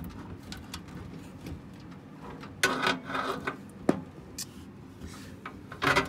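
Plastic cable connector scraping and rubbing as a front-panel USB 3.0 cable is pushed onto a motherboard header by hand, with louder scrapes a little before the middle and at the end, and a sharp click just before four seconds in.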